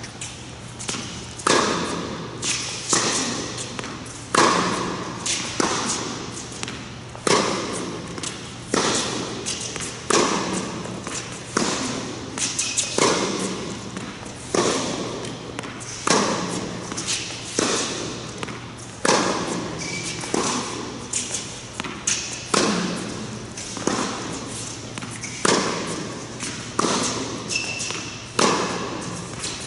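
Tennis ball rally of cross-court backhands: sharp racket strikes and ball bounces about every one and a half seconds, echoing in a large indoor tennis hall.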